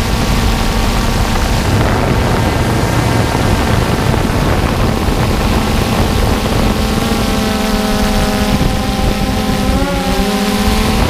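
Quadcopter drone's electric motors and propellers running, heard from the drone's own camera as a loud steady whir over rushing air. From about seven seconds in a clearer whine of several pitches stands out, wavering briefly near the end as the motor speed shifts.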